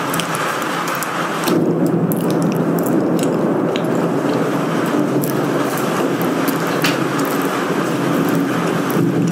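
Storm wind and rain on a window: a steady rushing noise with scattered raindrop ticks. It grows louder about a second and a half in.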